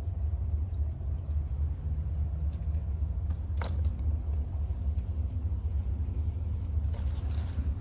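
A steady low rumble, with one sharp click about halfway through.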